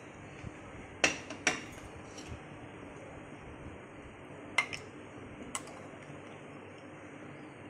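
Dishes clinking as curry is served: a glass bowl and a serving ladle knock against a metal pot in four short, sharp clinks, two about a second in and two more in the middle, over a low steady hiss.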